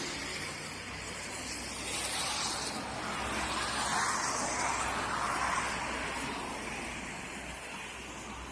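A car passing by on a street: a steady rush of traffic noise that swells about two seconds in, peaks around the middle and slowly fades away.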